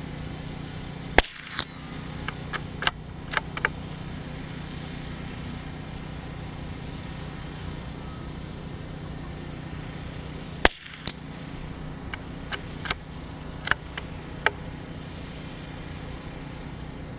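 Two shots from a CZ 455 bolt-action .22 LR rifle, about nine seconds apart, each followed over the next few seconds by a run of metallic clicks as the bolt is worked to eject the case and chamber the next round. A steady low hum runs underneath.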